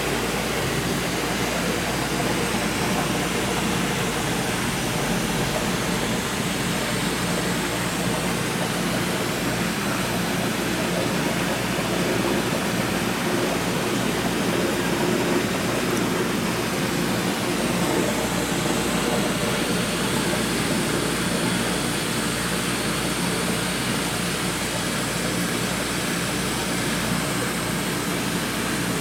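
Steady hum and hiss of a seawater holding tank's pumps and aeration running, level and unchanging.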